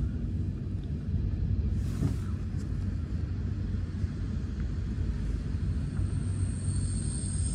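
Steady low rumble of a ČD regional electric train heard from inside a passenger coach as it runs along the track, with a brief swish about two seconds in and a thin high squeal coming in near the end.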